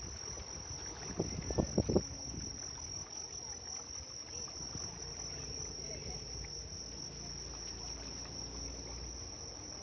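A steady, high-pitched insect chorus trilling without a break, over a low wash of sea waves. A short run of loud knocking sounds about a second and a half in.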